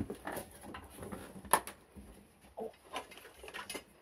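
Scattered sharp knocks and clicks of parts and clutter being handled and moved about, the loudest about one and a half seconds in, with a few more near the end.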